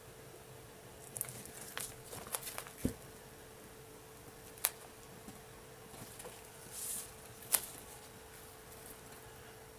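Light clicks and small knocks, scattered and irregular, with a brief rustle about seven seconds in, as a large wooden serving tray full of wet acrylic paint is tilted by gloved hands on plastic sheeting. A faint steady hum runs underneath.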